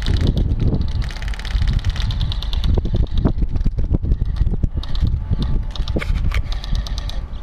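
Several bursts of rapid airsoft gunfire, a fast, even clatter of shots: one in the first couple of seconds, another around the middle and one more near the end. Beneath it runs a steady low rumble of wind on the microphone.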